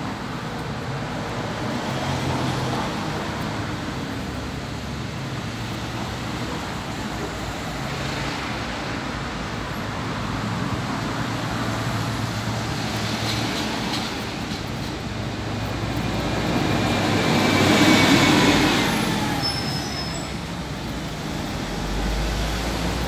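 Steady background road traffic noise, swelling to its loudest about eighteen seconds in, as of a vehicle passing, then easing off.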